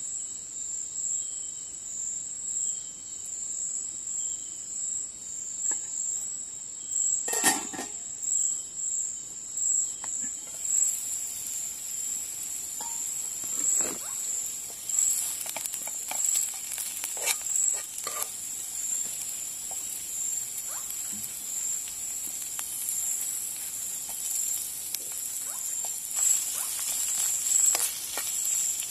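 Crickets trilling steadily, while onions and curry leaves in oil start sizzling in a non-stick wok about ten seconds in. A single knock comes a few seconds before the sizzle, then light clinks and scrapes of a spoon stirring in the pan.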